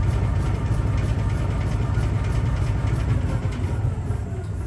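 Shock absorber dynamometer cycling a repaired Bilstein DampTronic Sky adaptive damper through its final high-speed test stroke: a steady low mechanical drone that eases off near the end as the test stops.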